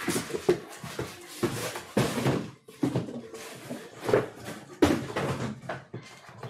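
Irregular rustling and crinkling with sharp knocks and taps: sealed trading-card boxes and their wrapping being handled and opened.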